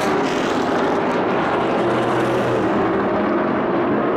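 Several race trucks' engines running together at racing speed on a paved oval: a loud, steady drone.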